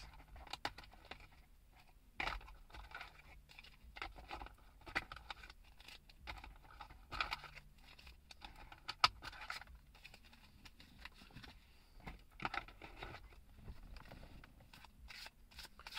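A deck of tarot cards being shuffled by hand: soft, irregular rustling and scraping of the cards against each other, with a quick run of flicking clicks near the end.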